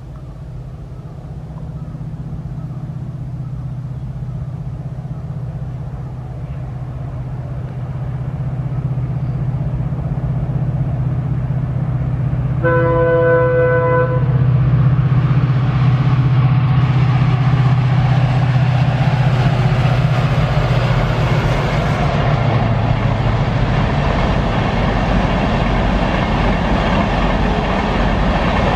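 Diesel locomotive approaching with a steady low engine drone that grows louder. About halfway through it sounds one short chord horn blast. The rumble and wheel noise of its passenger coaches crossing the bridge then build up and carry on as the engine drone fades away.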